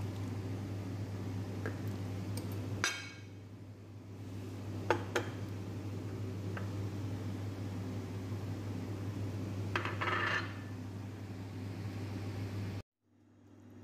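A few light clinks of a spoon and spices on a ceramic plate, two close together about five seconds in and a quick cluster near ten seconds, over a steady low background hum that cuts off abruptly near the end.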